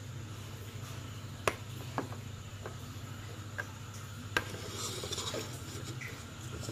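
Light clicks and taps of small glass test vials and reagent dropper bottles handled on a tabletop: about five sharp ticks spread over a few seconds, then a short rustle. A steady low hum runs underneath.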